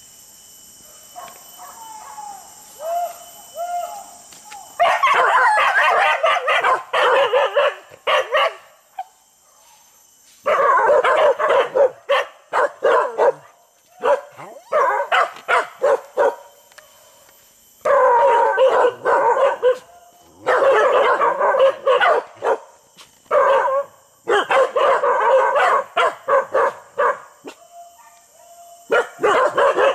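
Hunting dogs barking in rapid, dense bouts of a few seconds each, with brief pauses between, after a few whines and yips at the start. A steady high insect drone runs underneath.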